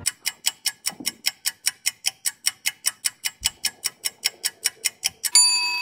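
Ticking-clock sound effect, a fast even tick about six times a second, building suspense. Near the end a short ringing tone sounds.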